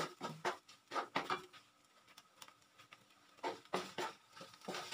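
Wooden spatula scraping and knocking against a wok while stirring tofu cubes in a cornstarch slurry: a run of short strokes, a pause of about two seconds, then the strokes start again.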